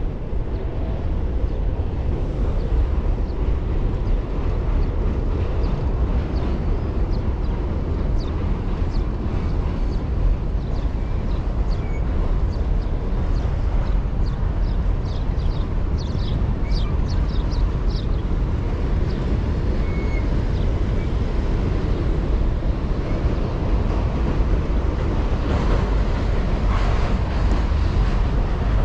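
Steady wind rumble and road noise on a GoPro carried on a moving bicycle, with a run of faint, short high ticks around the middle.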